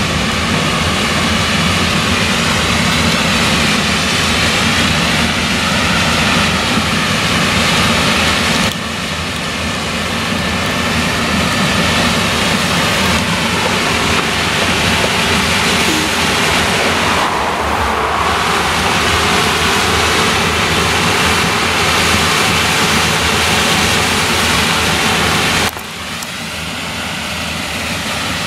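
New Holland CX combine harvester with an eight-row Geringhoff corn header harvesting maize, its engine and machinery running steadily under load. The level steps down abruptly twice, about nine and 26 seconds in.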